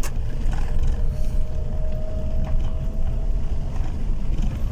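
In-cabin noise of a car rolling slowly over an unpaved, stripped road surface: a steady low rumble of engine and tyres. A faint steady whine sounds for a couple of seconds in the middle.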